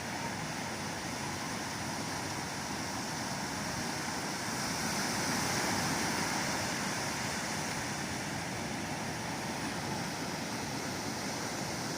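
Ocean surf: a steady rush of breaking waves that swells a little around five seconds in.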